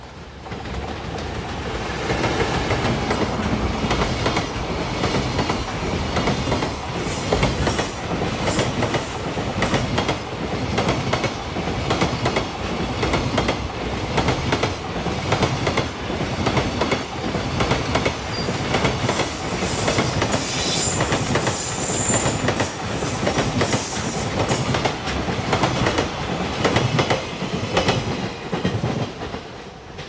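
Freight train hauled by an EF210 'Momotaro' electric locomotive, a long rake of container wagons passing close by. A loud steady rumble with a rapid clickety-clack of wheels over the rail joints. High metallic wheel squeals come about two-thirds of the way through, and the sound falls away near the end as the last wagons pass.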